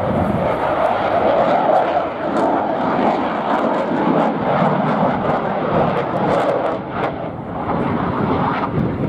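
Spanish Air Force Eurofighter Typhoon's twin EJ200 turbofan engines, a loud, steady jet roar with a crackling edge as the fighter flies its display.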